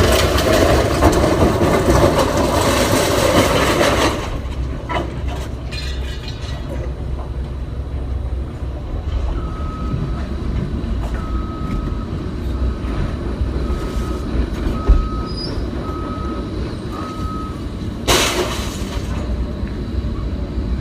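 Heavy machinery rumbling, with a loud rushing noise at the start and again briefly near the end. In the middle a reversing alarm beeps about once a second, some eight times.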